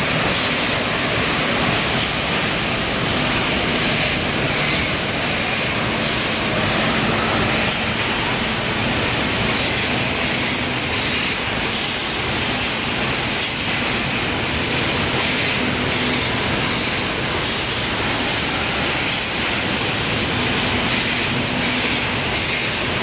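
Industrial vacuum cleaner running in a glass bottle plant, its even hiss-like rush merged with the steady noise of the forming machinery. It runs without a break, with a faint hum that comes and goes underneath.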